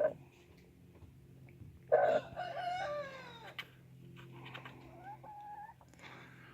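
A rooster crows once about two seconds in: one long call that bends down in pitch at its end. A fainter pitched call follows, over a low steady hum.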